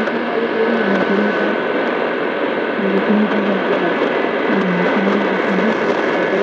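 Shortwave AM reception with heavy static hiss and a weak station barely audible underneath, as the receiver is tuned onto 4955 kHz in the 60 m band, the frequency listed for Radio Cultural Amauta. A few faint steady whistles sit in the noise.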